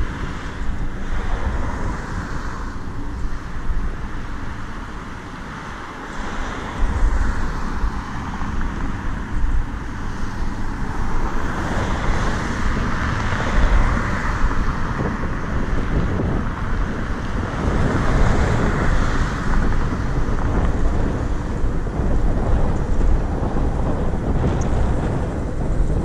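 Wind buffeting the microphone on a moving electric scooter, mixed with road and traffic noise that swells and fades.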